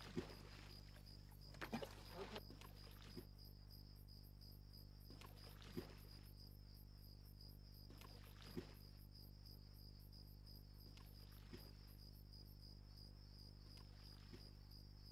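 Near silence: a steady high cricket chirring over a low hum, with a few faint soft knocks and a small splash about eight and a half seconds in.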